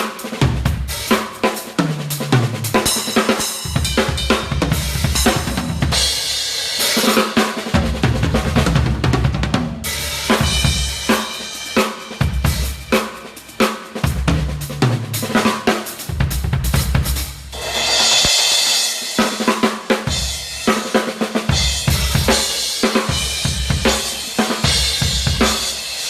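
Crush acoustic drum kit played in a sound check: continuous grooves and fills across kick drum, snare, toms and hi-hat, with short falling tom tones and a bright crash cymbal wash about two-thirds of the way through.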